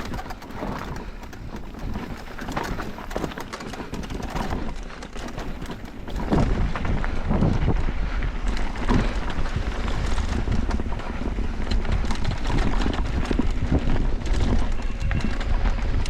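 Electric mountain bike clattering and rattling over a rough downhill trail, with tyre noise and a heavy low rumble of wind buffeting the action-camera microphone; it gets louder about six seconds in as speed picks up.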